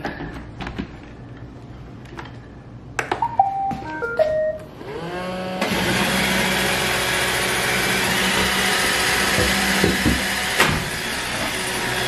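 iRobot Roomba 614 robot vacuum carrying a 25 lb weight plate: a few clicks, then a short series of beeping start-up notes about three seconds in. Its motors then spin up with a rising whine and it runs cleaning with a steady loud whir and hum.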